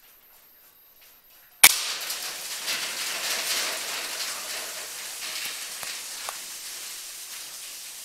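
A single sharp crack of a PCP air rifle shot about a second and a half in, followed by a dense crackling, rustling noise that slowly fades.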